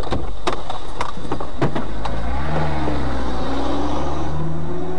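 In-car dashcam audio of a car: a run of sharp knocks and rattles in the first two seconds, then a steady low engine hum with a slightly wavering pitch from a little past the middle.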